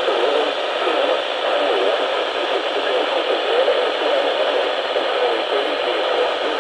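Radio static from a receiver: a steady, even hiss with faint wavering undertones.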